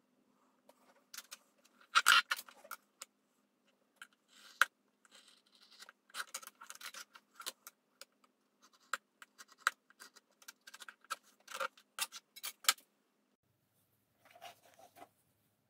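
Hand tools being handled on a plastic cutting board: a steel ruler, a small blade and a marker click and knock as they are picked up and laid down, with short scrapes in between. The loudest knocks come in a burst about two seconds in, the clicking thins out after about thirteen seconds, and a soft rustle follows near the end.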